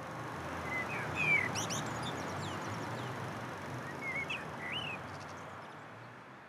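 Bird chirping over a steady city ambience of hum and hiss: a cluster of short chirps about a second in and a few more about four seconds in, then the whole sound fades out at the end.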